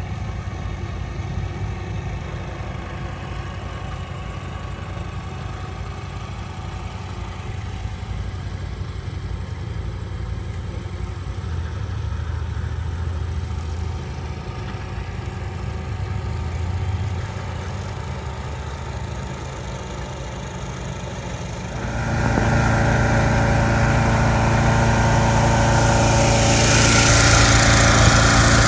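Engines of a tow-behind brush mower rig running at a steady idle, then stepping up sharply louder about three-quarters of the way in, with a hiss coming in near the end.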